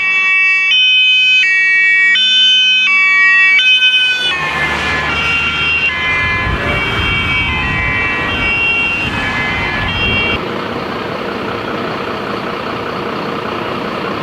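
Fire engine's two-tone siren alternating high and low about every 0.7 seconds. About four seconds in, the vehicle passes: the siren's pitch drops and engine and tyre noise swell. After about ten seconds the siren fades, leaving the rumble of the vehicle driving away.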